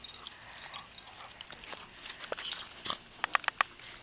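A pit bull playing and rough-housing with a small dog, making dog noises, with scattered sharp clicks and a quick run of four louder clicks near the end.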